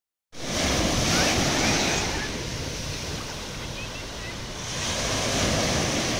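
Small ocean waves breaking at the shoreline and washing up the sand, with wind buffeting the microphone. The surf is loudest early, eases off in the middle and builds again near the end as the next wave comes in.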